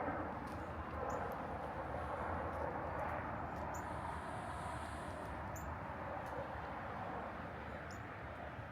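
Outdoor city ambience while walking: a steady wash of distant traffic and crowd noise with a low rumble, and faint short high chirps scattered through it.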